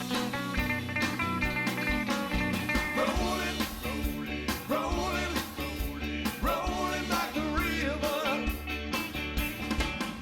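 Rock music with guitar and drums, a singing voice entering about three seconds in.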